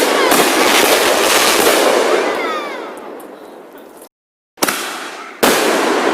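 Fireworks going off. A sharp bang is followed by dense crackling that fades over about three seconds. After a brief gap, two more bangs come about a second apart, each trailing crackle.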